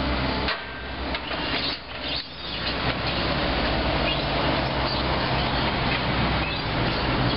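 Demolition excavator pulling down a brick building: its diesel engine running under load, with the crunch and clatter of falling masonry and timber. The noise eases for a couple of seconds about half a second in, then comes back up.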